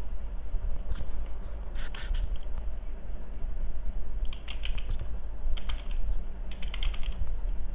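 Computer keyboard typing in four short runs of keystrokes, over a steady low hum.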